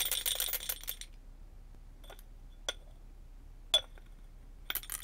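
Metallic jingling for about the first second, then a handful of single light clinks spread out over the rest.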